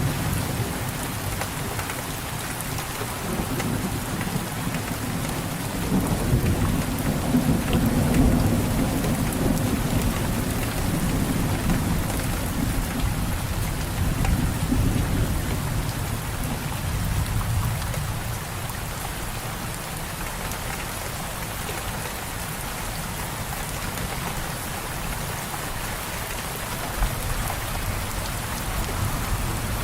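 Steady heavy rain falling on a surface, with a low rolling rumble of thunder through the first half that dies away after about 17 seconds.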